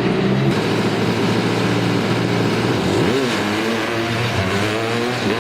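Engine of a small ride-on car running, its pitch dipping and rising as it revs about three seconds in and again near the end.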